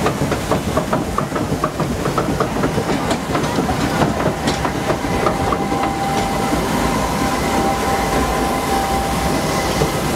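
Log flume lift-hill conveyor clattering as it hauls the log boat up the incline, with about three or four clicks a second. A steady thin whine joins about halfway through.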